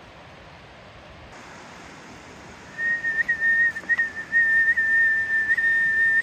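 A long, steady, high whistle starting about three seconds in, with a few brief breaks and small upward flicks in pitch. It is a recall call to bring an off-leash dog back.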